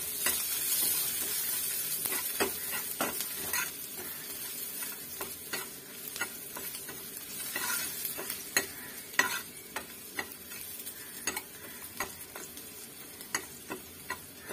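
Finely chopped garlic, with cumin, bay leaf and dried red chilli, sizzling in a little mustard oil in a black pan while a steel ladle stirs it, scraping and tapping the pan at irregular moments. The sizzle is strongest in the first couple of seconds, then dies down.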